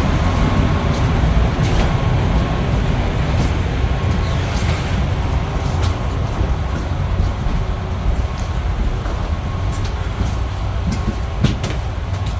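Model trains running on a large layout's track: a steady low rumble, with a few light clicks near the end.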